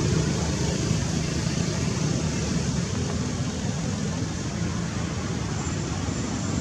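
Steady outdoor background noise: a low, even rumble with a hiss over it and no distinct calls or knocks.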